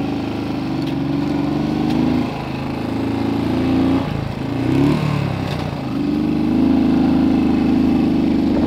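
Motorcycle engine running under way on the move. The engine note sags twice in the middle and bends down and back up, then steadies and pulls harder for the last few seconds.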